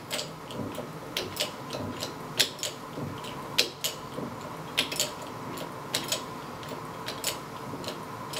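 NAPA hydraulic bottle jack's pump handle being worked up and down, its metal linkage giving a sharp click roughly once a second. The release valve is open, so the strokes push trapped air out of the hydraulic system rather than raising the ram.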